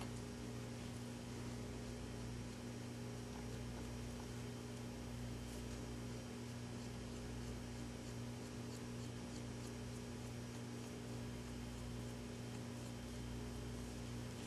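Steady electrical mains hum over a faint hiss, with a few faint clicks.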